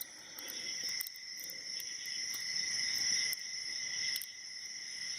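Steel hook pick scraping and lightly clicking against the spring-loaded pins of a six-pin padlock core held under tension, with several small clicks. A steady high-pitched chirring runs behind it throughout.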